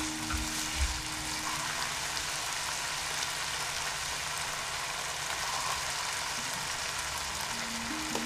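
Minced pork and chopped chilies sizzling in oil in a frying pan, a steady frying hiss. There are a couple of low spatula knocks in the first second.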